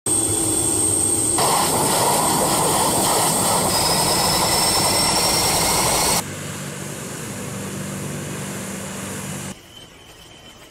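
Turboprop military aircraft engines and propellers running: a loud, steady engine noise with a faint high whine. It drops abruptly to a quieter drone about six seconds in, and quieter again near the end.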